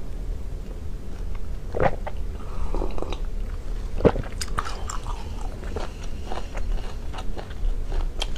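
A person chewing a large mouthful of sea snail meat close to a lapel microphone, with scattered short clicks and crackles, the sharpest about two and four seconds in.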